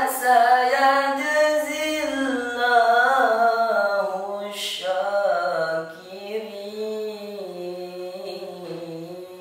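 A boy reciting the Quran in the melodic tilawah style: one long, continuous phrase with slow wavering ornaments, its pitch settling lower in the second half.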